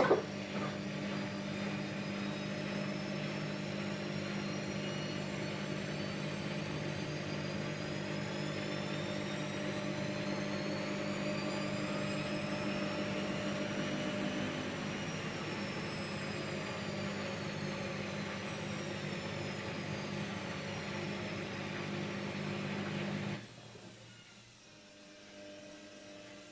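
Haier HW70-1479 washing machine spinning: a steady motor hum with a whine that rises in pitch until about halfway through, then falls back. The sound drops away suddenly about 23 seconds in, leaving only a faint hum.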